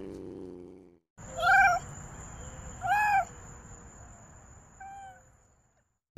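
A lynx giving three short calls, each rising then falling in pitch, the third much fainter than the first two. A thin, steady high whine runs beneath them.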